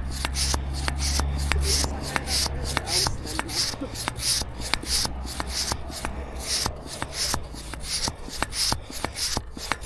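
Hand bicycle pump worked in quick strokes, about three to four a second, each a short hiss of air with a click, pumping up a tyre with a Presta valve. A low hum runs under the first two seconds.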